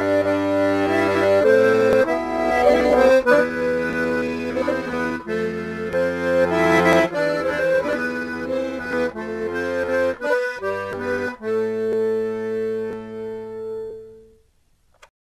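Accordion music, a lively tune that settles on a long held chord and fades out near the end.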